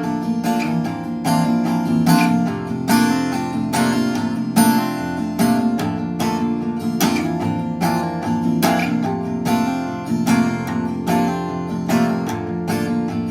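Acoustic guitar strummed steadily, about two strums a second, in an instrumental passage between sung verses. The guitar is in the open tuning D A D G B D with a capo on the third fret.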